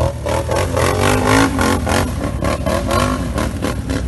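ATV (quad bike) engine revving, its pitch rising and falling over and over, with repeated clattering knocks as the quad bounces over rough ground.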